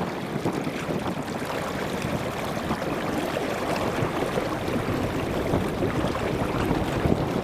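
Steady wind noise on the microphone over water washing against the hull of a small electric hire boat under way.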